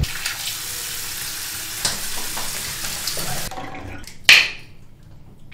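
A steady, even hiss that cuts off suddenly about three and a half seconds in, followed a moment later by one short, sharp burst of noise that dies away quickly.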